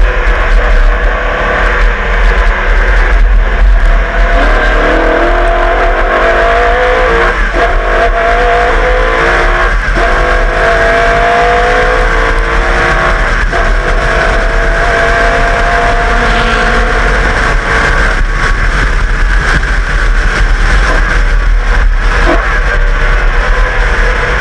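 Holden V8 of a Group A Walkinshaw VL Commodore race car under hard acceleration. Its note climbs in pitch and drops back several times as it shifts up through the gears, then runs on at a steadier high speed.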